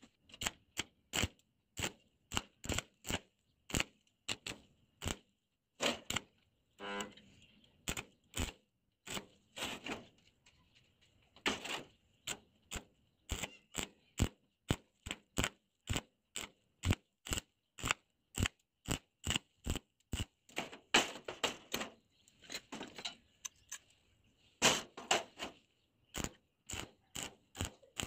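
A long run of sharp taps or knocks, about two to three a second in an uneven rhythm, over a faint steady high ring.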